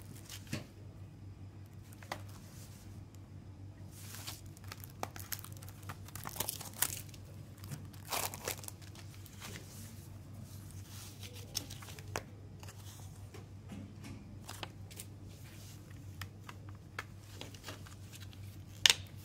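Cellophane shrink-wrap crinkling and tearing as it is peeled off a CD jewel case, in irregular bursts that are busiest in the first half, then a sharp plastic click from the opened jewel case near the end, the loudest sound.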